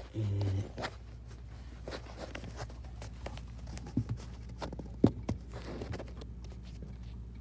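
Phone handling noise: scattered clicks and rubbing as the phone is moved and repositioned, with two sharper knocks about four and five seconds in, over a steady low hum. A brief voice sound right at the start.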